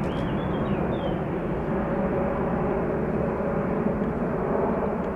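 Boeing 747-8 freighter's four GEnx turbofans giving a steady, unbroken jet roar as it climbs away after takeoff.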